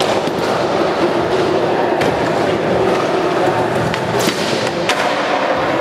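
Skateboard wheels rolling on hard ground: a steady noisy hiss with a few sharp clacks.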